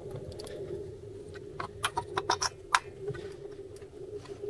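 Spark plug lead and its cap worked by hand on a GAZ-66 V8's spark plug: a quick run of small clicks and rattles from about a second and a half in. It is a test for a loose contact inside the plug cap.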